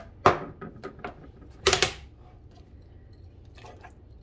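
Plastic clicks and knocks from handling a food processor's lid and bowl: a sharp knock about a quarter second in, a few light clicks, and a louder short clatter near two seconds in.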